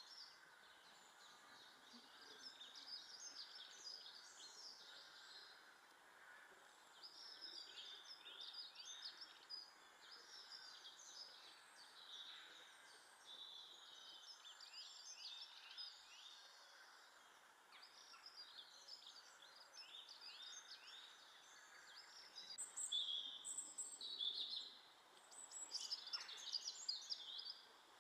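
Garden birds chirping and singing: runs of quick, high chirps in clusters throughout, getting louder near the end, over a faint steady outdoor hum.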